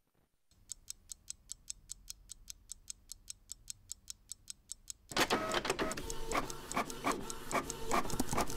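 Rapid, evenly spaced ticking, several ticks a second, starting after a moment of silence. About five seconds in, a louder, busier clatter of ticks with a faint ringing tone comes in.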